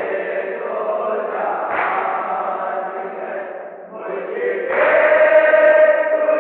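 Men's voices chanting an Urdu nauha (Shia lament) in a slow, drawn-out melody, from an old recording with a narrow, muffled sound. The chanting dips briefly and then comes back louder on a long held line about five seconds in.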